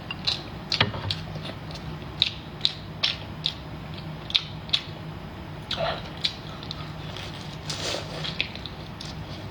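Close-up eating sounds of a large shrimp being chewed: irregular sharp crunches and wet clicks, one or two a second, over a steady low hum.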